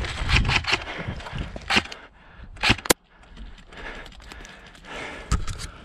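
Footsteps and rustling over dry grass and wood chips, broken by a few sharp cracks; the loudest are a close pair about three seconds in.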